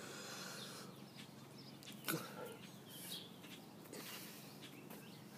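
Faint mouth and throat sounds of a man gulping down air to work up a burp: a soft breathy hiss in the first second, then a few small clicks.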